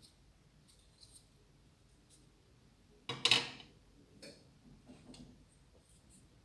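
Light clicks and taps of small parts being handled, with one louder scraping rustle about three seconds in and a few softer scrapes after it.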